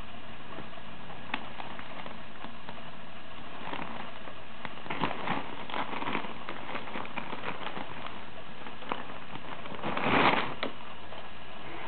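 Crinkling plastic hay bag and rustling hay as a rabbit shifts on it: scattered crackles from about four to seven seconds in, and a louder crinkle around ten seconds in as a hand presses the bag.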